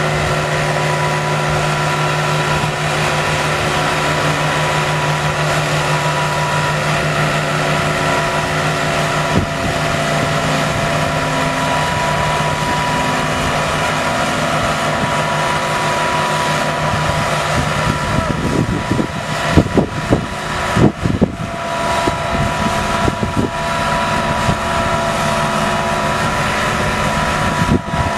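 Diesel engine of a New Holland four-wheel tractor running steadily under load while it pulls a disc plough. Wind buffets the microphone in gusts about two-thirds of the way through.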